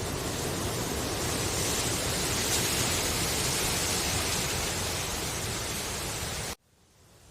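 Wind rustling through bamboo leaves as a steady, even hiss that swells a little partway through. It cuts off suddenly near the end, then begins faintly to return.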